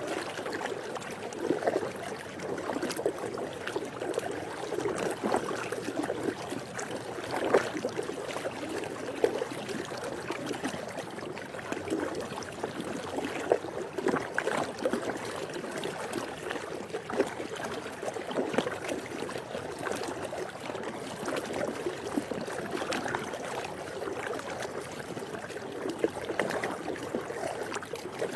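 Swimming pool water moving steadily, with many small splashes and drips.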